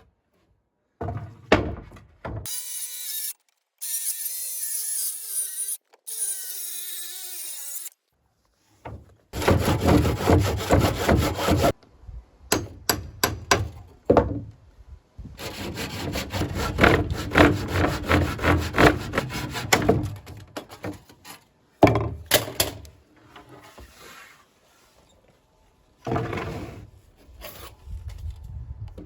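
A saw cutting through wood in quick, rasping back-and-forth strokes, heard in several short clips with abrupt cuts between them.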